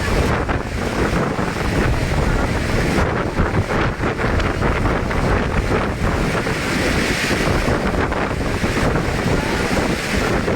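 Strong wind blowing hard across the microphone: a loud, continuous rushing rumble with no letup.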